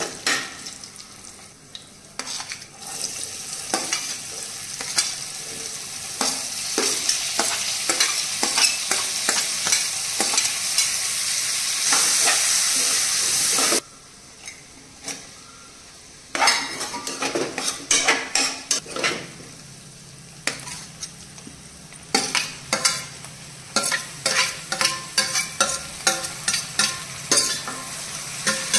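Oil sizzling in a steel frying pan as curry leaves, green chillies and chopped onions fry, with a steel spoon scraping and clicking against the pan while stirring. The sizzle grows louder through the first half and cuts off suddenly about halfway through. A couple of seconds later the stirring clatter starts again over a softer sizzle.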